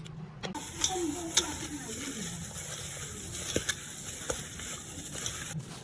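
Chicken frying and sizzling in a pan, with a few sharp pops or clicks. The sizzle starts suddenly about half a second in and cuts off just before the end.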